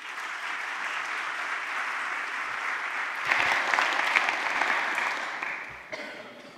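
Audience applauding, growing louder about three seconds in, then dying away near the end.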